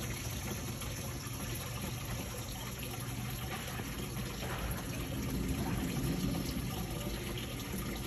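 Steady rushing noise of running water.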